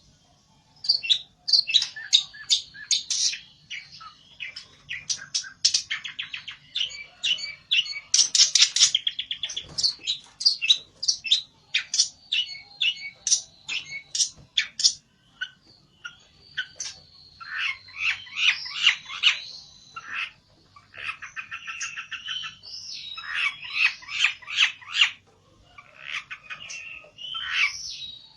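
A pelentet, a caged Indonesian songbird, singing hard in rapid runs of sharp, high chirps and fast trills, phrase after phrase with short breaks. This is aggressive, rival-challenging song.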